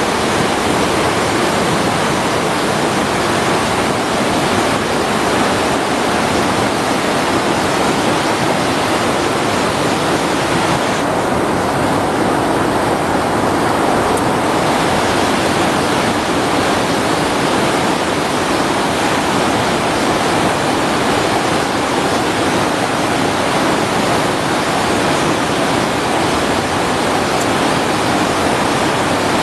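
Doncaster River water rushing, a loud, steady wash of flowing water.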